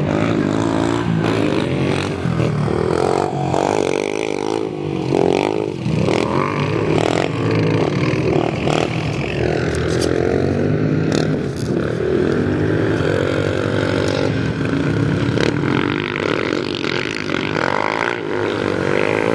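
Several ATV (quad bike) engines racing, their pitch rising and falling again and again as riders accelerate and back off. Short sharp knocks sound here and there.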